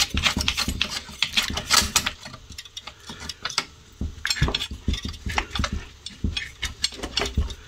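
Irregular metallic clicks, knocks and scrapes from a metal capacitor can being worked in its mounting on a steel radio chassis, with grips on its bottom nut; the can will not come out past its hardened rubber seal. The clicking is dense for the first couple of seconds, then sparser.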